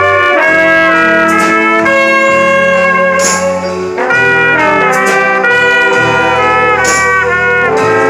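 A wind band playing, with an alto saxophone close by over a section of brass and saxophones holding chords above a bass line. Two cymbal crashes come about three seconds in and near seven seconds.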